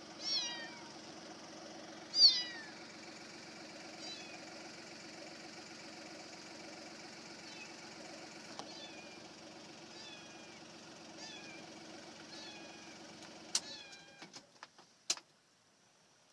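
Kittens meowing, high falling cries every second or two, the loudest about two seconds in, over the steady hum of an idling car engine. The engine hum stops about fourteen seconds in, followed by a few sharp clicks.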